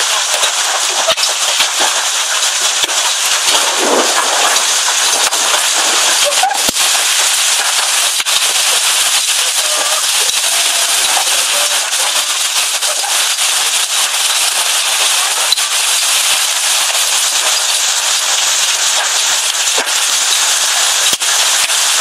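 Large hail pelting down: a dense, steady clatter of hailstones hitting, with sharp louder cracks from single stones scattered all through.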